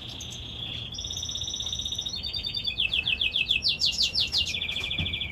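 A caged finch singing a continuous song of fast trills. Each run of rapidly repeated identical notes lasts about half a second to a second before switching to the next; some hold a steady pitch and others are made of quick falling notes, and the song gets louder toward the middle.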